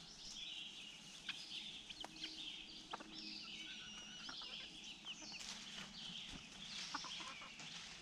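Hens clucking faintly, in short scattered calls, with light birdsong behind them.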